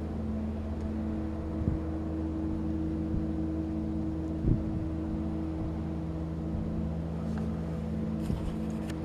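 Steady low industrial hum: a drone of several fixed low pitches that does not change, which the uploader attributes to a large machine at the Alcoa Massena West aluminium plant. A soft thump about four and a half seconds in.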